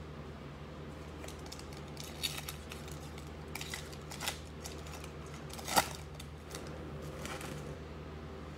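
Panini Illusions basketball trading cards being shuffled through a stack by hand, each card sliding off with a short sharp snap, five or so in all, the loudest about six seconds in. A steady low hum runs underneath.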